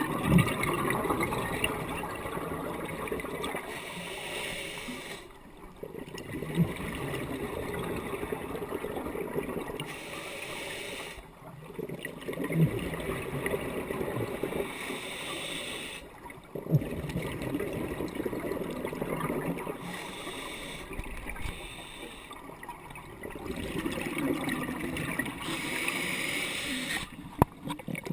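Scuba diver breathing through a regulator underwater: the bubbles of each exhale rush and gurgle past for several seconds, then briefly stop, about every five to six seconds. It is heard through the camera's underwater housing.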